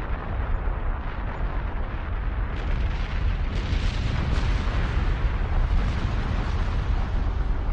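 Fire-and-pyrotechnic eruption of an artificial volcano built as a replica of Vesuvius: a steady deep rumble and hiss, with a few sharp cracks between about three and four and a half seconds in.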